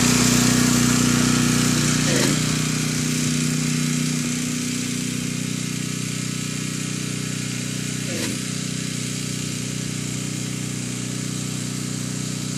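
Gas-engine pressure washer running steadily, just started. It grows quieter over the first few seconds as it is wheeled away across the lawn, then holds a steady level.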